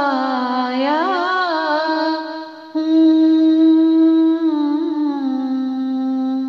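A woman singing an Urdu naat with no instruments, drawing out the word "paya" in long held notes with slow ornamented turns of pitch.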